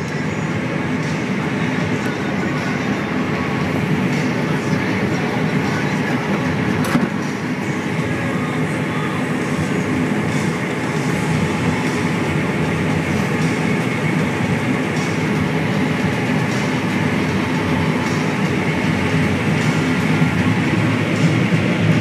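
Combine harvester running steadily under load as it harvests the standing crop, heard from inside the cab: a constant, dense machine drone of engine and harvesting mechanism.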